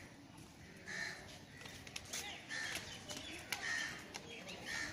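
Crows cawing four times at roughly one-second intervals, over faint crowd murmur.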